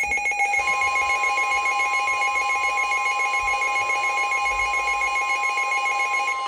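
Midland weather radio's weather alert alarm: a fast, warbling electronic tone, joined about half a second in by the steady NOAA Weather Radio warning alarm tone. The warble stops near the end while the steady tone carries on. The alarm signals an incoming severe thunderstorm warning.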